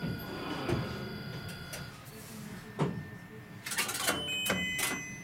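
Stationary tram from inside the driver's cab: a steady high whine cuts off about two seconds in. Several sharp clicks and knocks follow, with short high beeping tones near the end.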